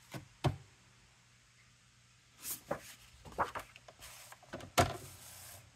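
Paper-crafting handling sounds: a few light knocks and taps on the work surface mixed with short rustles of cardstock being moved, with one sharper knock near the end.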